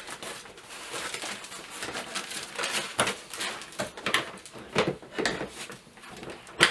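Rustling, scraping and knocking of plastic as a monitor stand is slid onto the back of a Dell S2721DGFA monitor by its tabs, ending in a sharp click near the end as it snaps into place.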